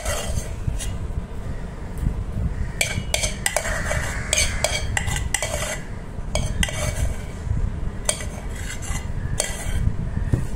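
Metal spoon clinking and scraping irregularly against a steel bowl as the last of the potato filling is scooped out, over a steady low hum.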